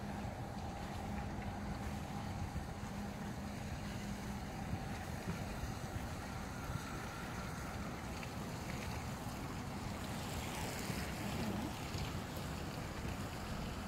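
Steady low rumble of outdoor background noise with a faint low hum.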